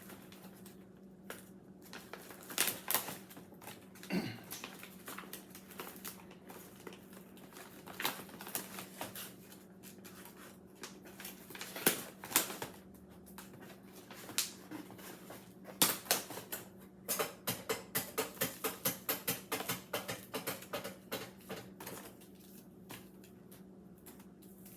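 Mylar food-storage bags and oxygen absorber packets being handled: scattered sharp clicks and crinkles, with a quick string of clicks a little past the middle, over a faint steady low hum.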